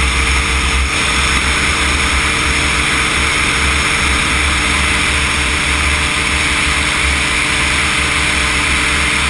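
Cosmos weight-shift microlight trike in cruising flight: its engine and pusher propeller run steadily, mixed with heavy wind buffeting on the microphone in the open cockpit.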